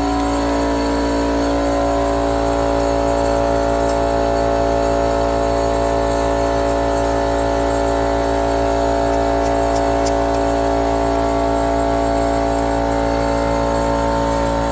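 Air compressor running steadily, its motor and pump holding one constant pitch with no change in speed or level.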